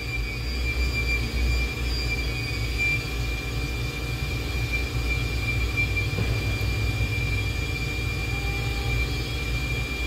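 Addison split heat-pump condensing unit running under startup, its compressor and VFD-driven condenser fans making a steady machine hum with a steady high-pitched tone over it.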